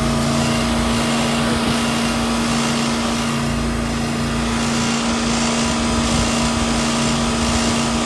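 R22 walk-in cooler condensing unit running steadily: a constant compressor hum under the air noise of the condenser fan. It is running on high head pressure through a dirty condenser coil.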